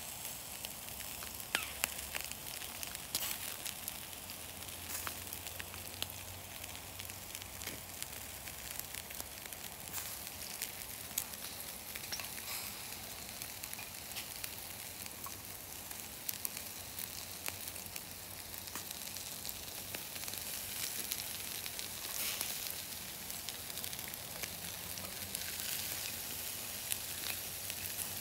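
Pork barbecue skewers sizzling on a charcoal grill: a steady hiss with scattered small pops and crackles from the coals.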